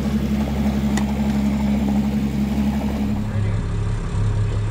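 Fishing boat's engine idling, a steady low hum whose tone changes abruptly about three seconds in.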